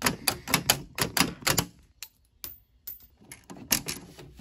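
Rapid sharp metallic taps, about five a second for the first second and a half, then scattered lighter clicks and another short run near the end: a tool striking a knockout in the underside of a steel breaker panel enclosure to break it out.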